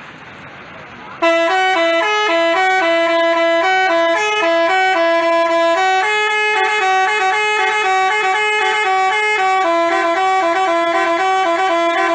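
Telolet basuri musical bus horn playing a tune: a quick run of loud horn notes stepping up and down in pitch. It starts about a second in, after a moment of faint background hiss.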